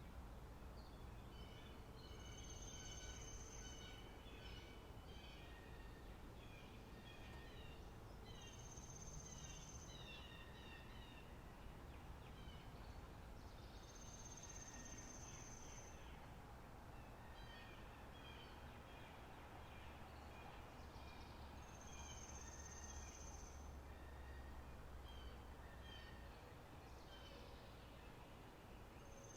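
Faint spring-meadow nature ambience: many small birds chirping, with a high steady trill that recurs for a couple of seconds about every six seconds.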